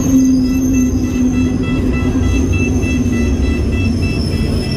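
Cairo Metro train at the platform: a loud low rumble with a low motor whine that sinks slightly in pitch over the first three seconds.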